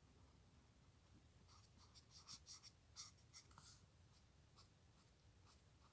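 Faint scratching of a Touch Twin alcohol marker's nib on paper: a run of quick short coloring strokes, mostly in the middle stretch, filling in a large area.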